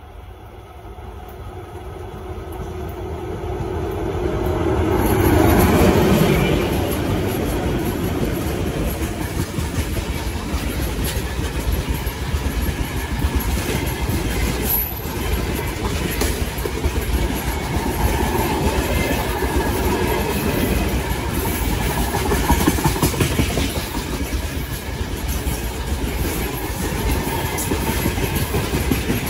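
Freight train approaching and passing close by. The locomotive grows louder for about five seconds and drops in pitch as it goes past. Then comes the steady rumble and clickety-clack of the wagons' wheels over the rail joints.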